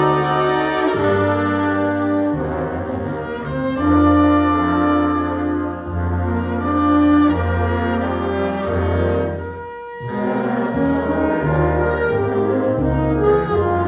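Big-band jazz ensemble playing live: saxophones and brass hold sustained chords over piano and upright bass. The sound thins out briefly about ten seconds in before the full band comes back in.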